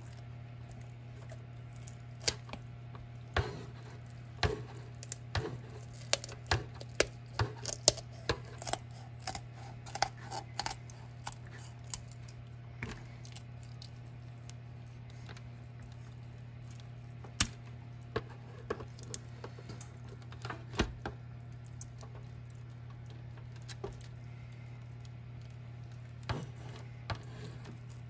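Kitchen shears cutting through a raw chicken's backbone and rib bones: irregular sharp crunching snips, coming in clusters with long pauses between. A steady low hum runs underneath.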